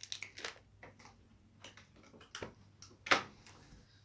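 Scattered small clicks and rustles of packaging being handled and unwrapped, with one sharper click about three seconds in.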